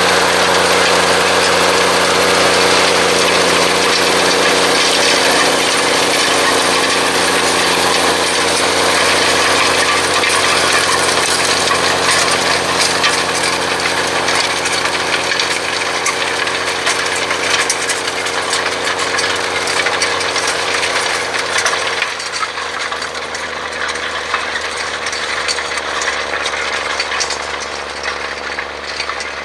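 Claas Xerion 3300 tractor's engine running steadily under load while pulling a Köckerling cultivator, with scattered clicks and clatter from the cultivator working the ground. About 22 seconds in, the engine note changes and the sound grows slightly quieter as the tractor moves away.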